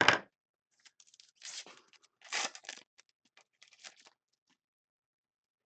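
Trading cards being handled: a sharp rustle at the start, then two scratchy sliding noises about one and a half and two and a half seconds in as cards are slid against each other, with light clicks in between, going quiet after about four seconds.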